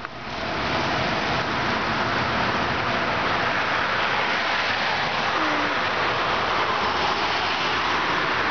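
Steady rushing noise with no clear pitch or rhythm.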